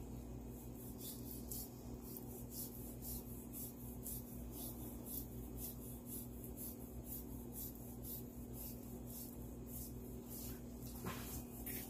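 Faint, quick scratchy strokes of a knife slicing the fat cap off a raw beef brisket, over a steady low hum.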